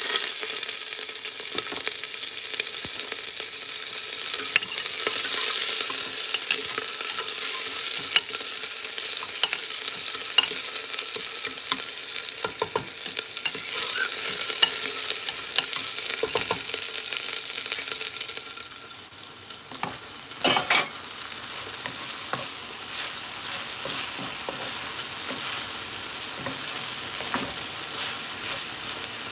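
Sliced onions sizzling loudly in hot oil in a steel pot, stirred with a metal spoon that clicks and scrapes against the pot. A little past halfway the sizzle drops to a quieter frying of chopped okra in a pan, with a sharp double clatter soon after.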